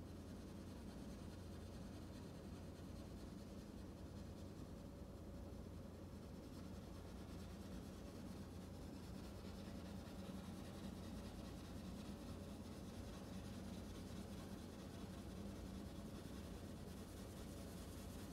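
Bass viols da gamba played with a soft, scratchy bow noise instead of clear notes, like pen scratching, over a faint steady low hum. The noise grows a little brighter after several seconds.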